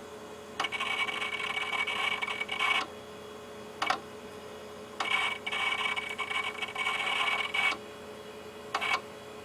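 Busted hard drive in a Power Macintosh 6500 repeating a mechanical cycle: a buzzing whine lasting about two seconds, then a single sharp click a second later, recurring about every five seconds over the computer's steady hum. The sound is the sign of a failed drive that keeps retrying.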